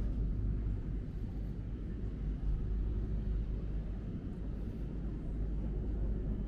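Steady low rumble of city background noise, with no distinct events standing out.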